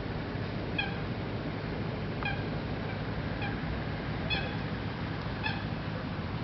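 A bird giving five short, evenly spaced calls over a steady low background noise.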